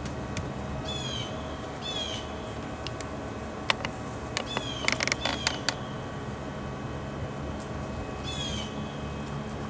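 A bird calling outdoors: short, high, downward-sliding calls, a few times, over a steady low hum. A handful of sharp clicks or taps cluster around the middle.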